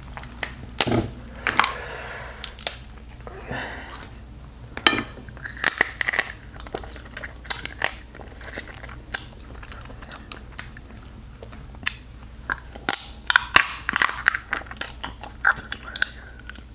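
Close-up eating of crab from a seafood boil: chewing and smacking, with sharp cracks and clicks of crab shell scattered throughout.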